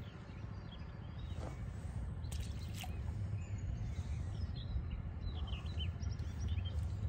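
Steady low outdoor rumble, growing louder, with small birds chirping in the background from about three seconds in. A couple of sharp clicks about two and a half seconds in.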